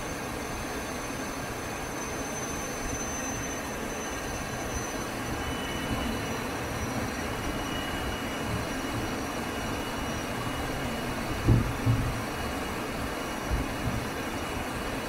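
ATR 72-600 turboprop engine running at idle just after its start, heard from inside the cockpit as a steady noise with a faint high whine. A few dull low thumps come about three quarters of the way through.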